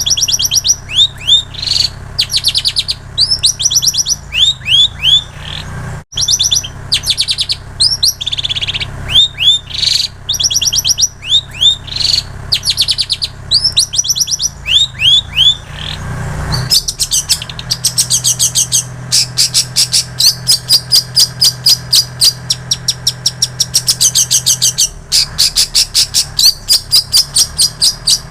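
Long-tailed shrike (cendet) singing a mimicking song learned from prinias and canaries: first repeated groups of quick down-slurred whistled notes, then, a little past halfway, a fast unbroken run of short sharp notes, about four or five a second. A low steady hum lies underneath.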